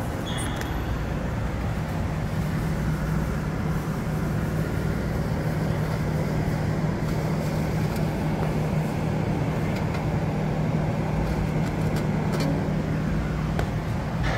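A steady mechanical hum over a low rumble and noise, as of a machine running continuously.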